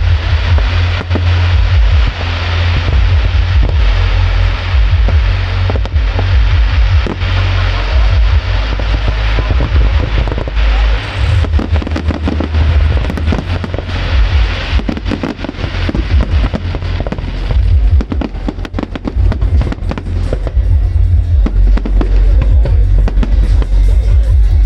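Fireworks display: a long run of shell bursts and crackling, densest in the middle, with music playing loudly alongside.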